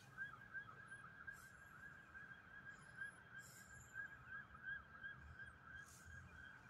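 Faint ambulance siren in a fast yelp, its pitch wavering several times a second.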